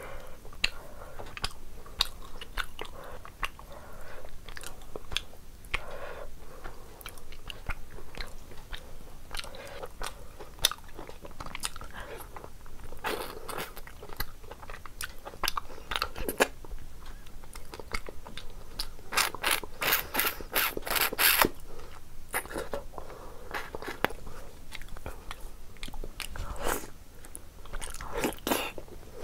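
A person biting and chewing mutton curry eaten by hand, pulling meat off the bone: irregular wet smacks and clicks of chewing, with a quick run of loud sharp clicks about two-thirds of the way in.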